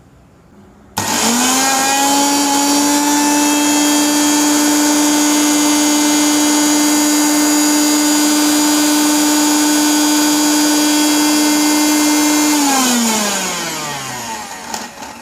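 Pigeon 1000-watt mixer grinder motor running at third speed with its jar fitted: it starts suddenly about a second in, settles into a steady high whine, and near the end is switched off and winds down with falling pitch. Its peak level reads 89 dB on a phone sound meter.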